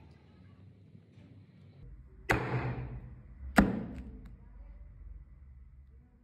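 Kitchen knife chopping through a tomato and striking a wooden cutting board twice, a little over a second apart, the first about two seconds in; each chop is a sharp knock that dies away over about half a second.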